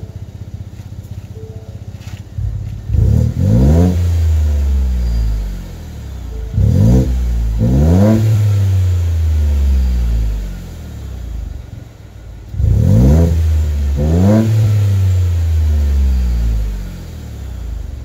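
Ford F-150's 2.7-litre twin-turbo EcoBoost V6 breathing through a Bullet Performance aftermarket muffler. It idles, then is revved three times, each rev two quick blips whose pitch rises and then falls back to idle.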